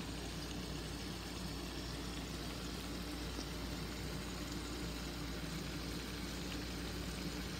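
Steady low hum and hiss of a pot of food cooking on the stove, unchanging throughout, with no distinct clinks or bubbles standing out.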